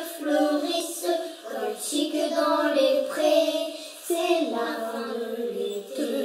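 A child's voice singing a slow French children's song melody, with no instruments heard.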